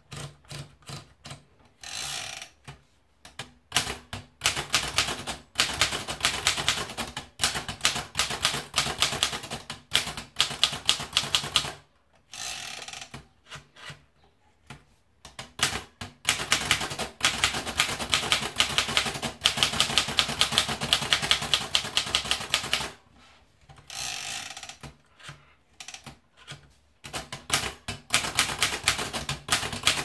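Monarch Pioneer portable typewriter being typed on: fast runs of sharp key strikes, several a second, broken by pauses. In the pauses come softer ratcheting sounds of the paper being rolled in and the carriage returned to start a new line.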